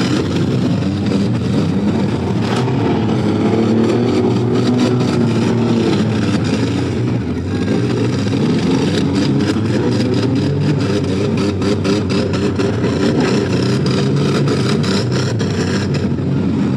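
Several demolition derby cars' engines revving hard at once, their pitches rising and falling, with frequent sharp bangs of cars hitting each other.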